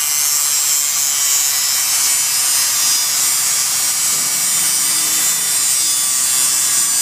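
A power tool cutting steadily into the rusty steel shackle of a U-lock, a continuous high-pitched hiss with no break.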